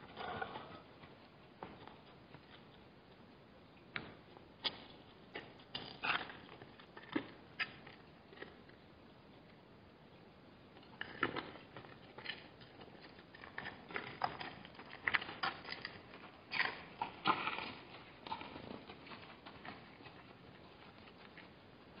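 Scattered soft clicks and taps from gemsbok moving and drinking at a waterhole, their hooves on stony mud and their muzzles at the water. They come in two irregular bouts, the busier one in the second half.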